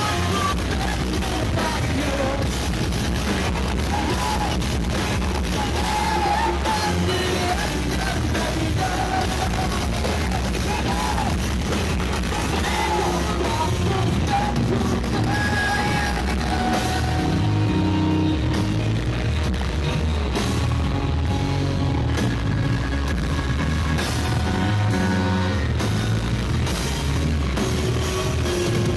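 Live rock band playing through a PA, with electric guitars, drums and a singer's vocals, recorded from within the audience at a concert.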